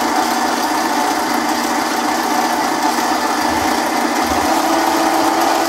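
MicroLux 7x16 mini lathe running steadily with its power feed engaged, a cutting tool turning the threads off a small metal part. The motor and gearing give a steady whine.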